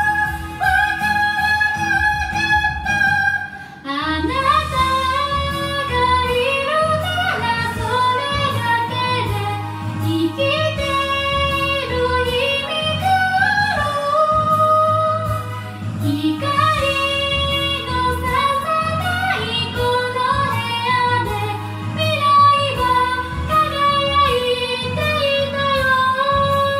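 A woman singing a Japanese pop song into a karaoke microphone over the backing track. A long held note at first breaks off after about four seconds, and then the melody moves on phrase by phrase.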